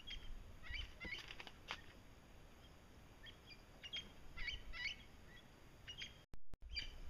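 Birds chirping outdoors: short, high calls and little pitch glides scattered through, in small clusters, over faint background noise. The sound cuts out completely for a moment near the end.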